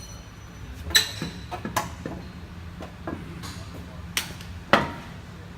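A few sharp knocks and clinks, some with a brief metallic ring, over a steady low hum.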